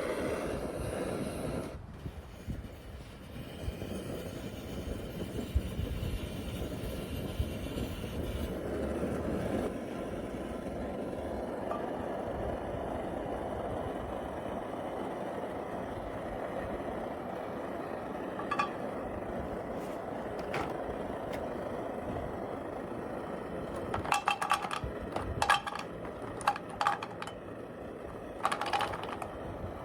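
Optimus 111B pressurised petrol stove burning with a steady rushing hiss after being primed with alcohol. A few light metal clinks come past the middle and in a short cluster near the end.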